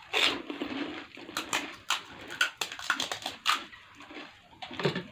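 Crisp panipuri shells being bitten and chewed: a quick run of sharp crunches, with a short noisy burst at the start and another near the end.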